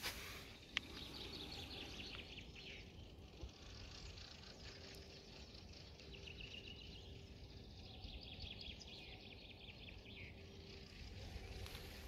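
Nightingale singing faintly in three rapid, trilled phrases, with a single sharp click about a second in.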